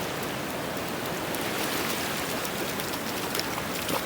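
Sea surf washing on a sandy beach, a steady even hiss, with a couple of faint ticks near the end.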